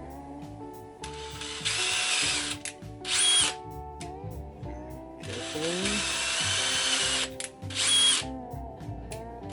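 Power drill boring into a 3D-printed plastic part in two runs of about two and a half seconds each, each ending in a brief louder, higher whine as the drill speeds up. Background music plays underneath.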